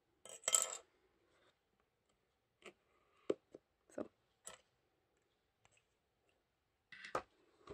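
Hands handling a cardboard box and a small plastic item: a short rustle just after the start, then about half a dozen separate sharp clicks and taps, and another brief rustle near the end.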